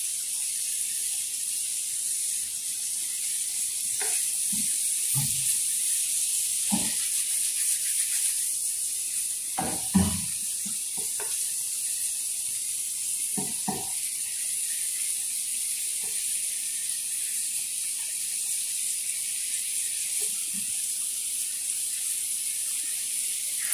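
Shrimp and garlic sizzling in butter in a frying pan over low heat, a steady high hiss, with a few short knocks and scrapes of a spatula against the pan, the loudest about ten seconds in.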